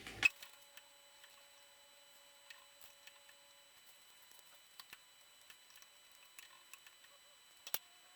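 A sharp knock at the start, then scattered faint light clicks and ticks, with one sharper click near the end.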